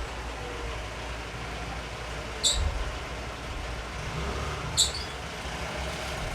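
Steady low rumble of road traffic, broken twice by a short, sharp click, the two about two seconds apart.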